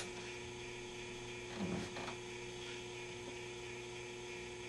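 A switch clicks at the very start. After it comes a steady low mains hum from a just-powered-up Admiral 16R11 vintage vacuum-tube television on a Variac while its tubes warm up.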